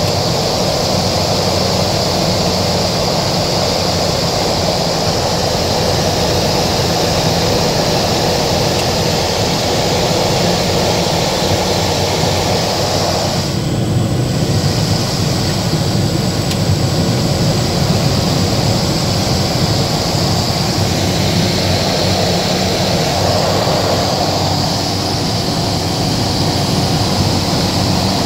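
Engine and propeller noise of a single-engine propeller plane heard inside the cabin, a steady drone on final approach. Its tone shifts about halfway through and again a few seconds before the end.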